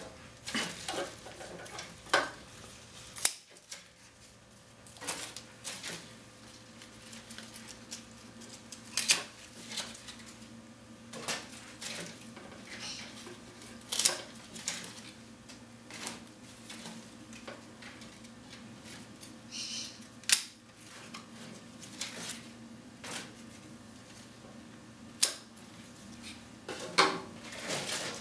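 Scissors snipping leaves and stems off vivarium plants: sharp, irregular clicks every few seconds, with leaves rustling as they are handled between cuts.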